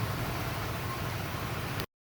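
Steady background noise with a low rumble, which cuts off suddenly near the end into dead silence as the recording stops.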